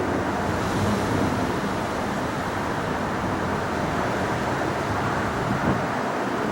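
Jet engine noise from an Airbus A350's Rolls-Royce Trent XWB turbofans at takeoff power, a steady rushing noise with no distinct tone.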